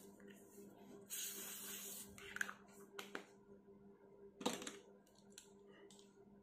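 Faint rustling and handling noises close to the microphone: a short hiss about a second in, then a few light clicks and one sharper knock about four and a half seconds in, over a steady low hum.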